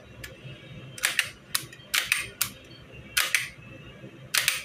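Sharp metallic clicks and clacks of a Beretta 92FS 9 mm pistol's parts being handled as it is reassembled. They come irregularly, several in quick pairs.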